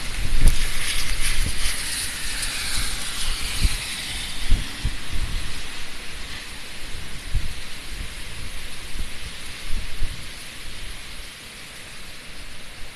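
Heavy typhoon rain and gusting wind: a dense hiss with irregular low thumps, easing somewhat toward the end.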